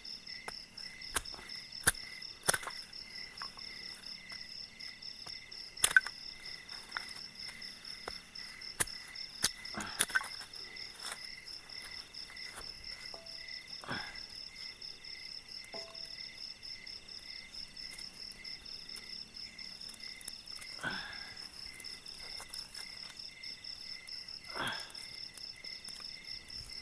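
A steady, pulsing chorus of night insects, with sharp, loud snaps of dry sticks being broken for a campfire, about eight in the first ten seconds. A few softer knocks follow later as wood is pushed into the fire.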